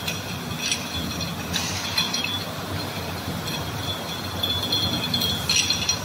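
Bottle washing machine's chain conveyor running with a steady mechanical hum, while the bottles riding on it clink and rattle against each other and the guide rails in short clusters about a second in, around two seconds and near the end.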